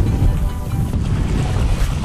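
Wind buffeting the microphone with small surf waves washing up on a sandy beach, under background music.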